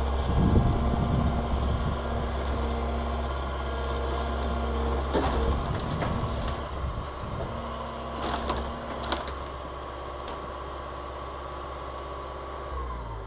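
Excavator's diesel engine running steadily, with a series of sharp cracks and crunches from the middle of the clip as the old building is broken apart. Near the end the engine note drops.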